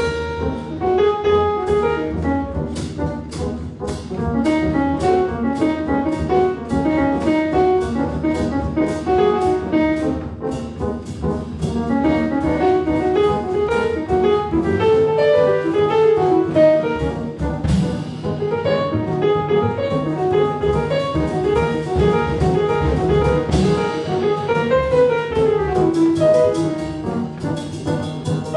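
Live jazz piano trio playing: grand piano in quick rising and falling runs of notes over double bass and a drum kit keeping time on the cymbals.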